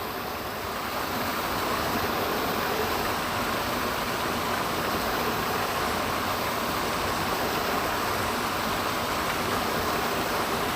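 Waterfall rushing steadily, an even wash of falling water with no breaks.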